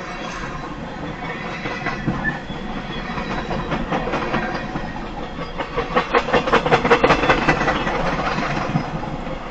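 A CSX freight train's cars rolling past, steel wheels clicking over the rail joints with a steady rumble. A quick, even run of clicks, loudest a little past the middle, marks a car's trucks passing.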